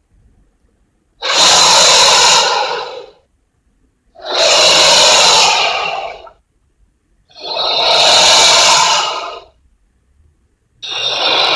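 Film creature sound effects of a giant anaconda: four separate breathy hisses, each about two seconds long and roughly three seconds apart, the last still going at the end.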